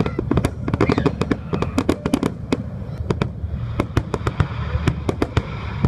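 Aerial firework shells bursting in rapid, irregular succession: many sharp bangs and cracks a second over a continuous low rumble.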